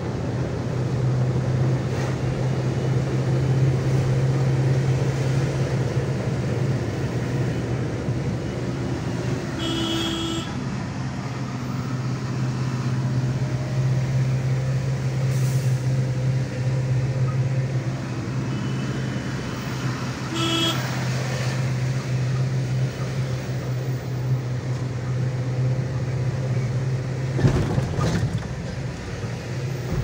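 Engine of a heavy vehicle running steadily, heard from inside its cab while driving. The horn gives two short toots, about ten and twenty seconds in, and there is a sharp thump near the end.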